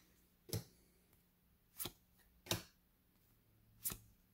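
Trading cards being flicked off the front of a hand-held stack one at a time, with a short sharp snap as each card comes free: four snaps, about a second apart.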